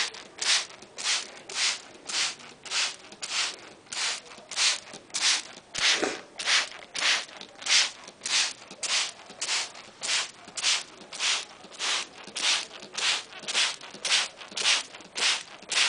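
Hand-held spray bottle misting a pet parrot: the trigger is squeezed in a steady rhythm of short hissing sprays, about two a second.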